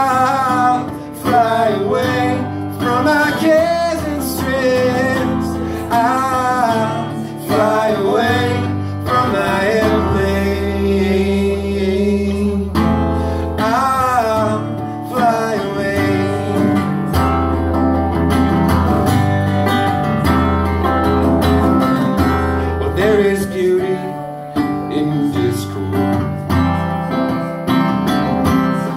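Live acoustic duo music: two guitars, one acoustic and one acoustic-electric, strumming steadily, with a wavering lead melody line over them and no sung words.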